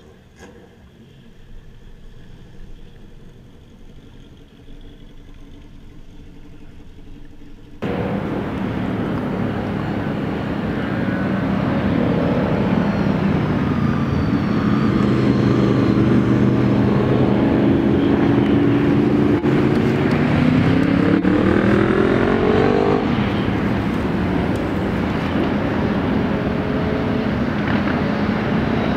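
A low, quiet background at first. About eight seconds in, the sound of a group of motorcycle engines cuts in abruptly and runs loud and steady, with the engine pitch rising as they accelerate between about twenty and twenty-three seconds in.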